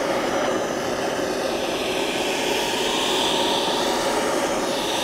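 Handheld gas torch running, a steady hiss of the flame as it heats the aluminum transmission case around a pressed-in bearing so the case expands and frees the bearing.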